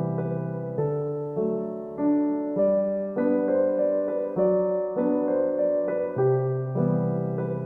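Background music: soft piano chords, a new chord struck about every half second to second.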